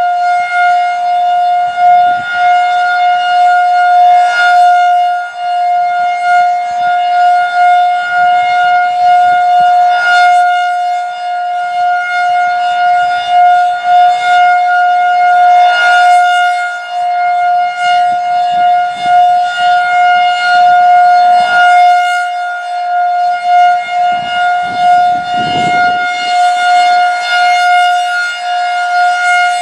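Federal Signal 2001-DC rotating outdoor warning siren sounding its steady Alert tone, one unwavering pitch with strong overtones. The loudness swells and fades about every six seconds as the rotating head sweeps past and away.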